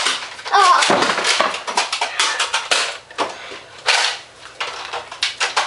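Scuffling and clatter of a Nerf blaster fight: rapid knocks and clicks and running footsteps on a hard tiled floor, with a child's wordless yell about a second in.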